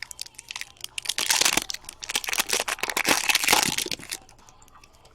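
Crinkling and crackling of a hockey card pack wrapper being handled and torn open, busiest from about half a second in until about four seconds, then dying down.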